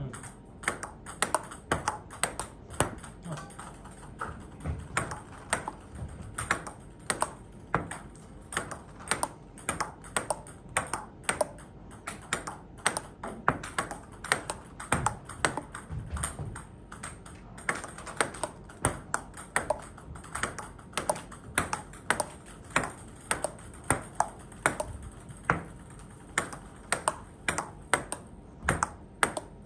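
Table tennis backhand rally: the ball clicking off the paddles and bouncing on the table in a steady, even exchange, about two to three clicks a second.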